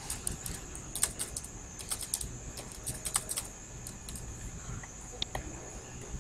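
Typing on a computer keyboard: irregular key clicks, some in quick runs with short pauses between.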